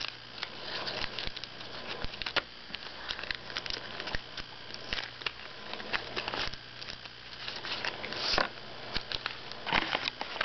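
Plastic candy-bar wrappers crinkling and crackling as the packages are handled and moved on a table, with scattered sharp clicks.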